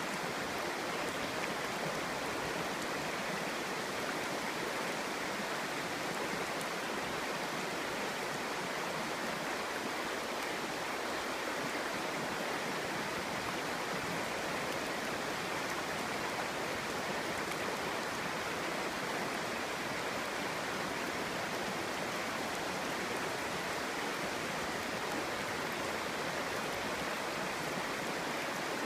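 Clear stream burbling steadily over rocks, a constant rushing babble with no breaks.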